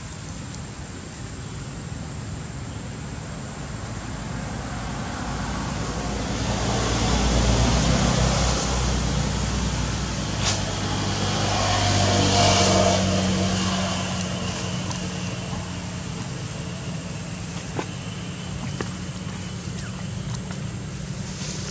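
A motor vehicle going past: engine and road noise swell up around the middle, peaking twice, then ease off to a steady low engine hum.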